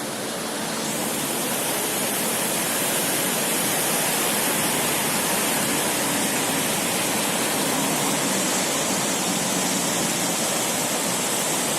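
Steady, even rushing hiss with no rhythm or tone, strongest in the high range. It starts abruptly after the last words and cuts off at the very end.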